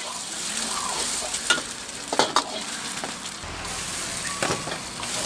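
Egg and green peppers sizzling in a hot wok, with a metal ladle stirring and clinking sharply against the wok a few times.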